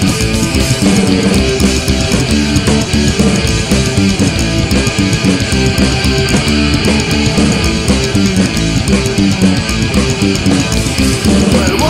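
Psychobilly punk rock song in an instrumental, guitar-led passage with bass and a steady drum beat underneath, loud and continuous, without singing.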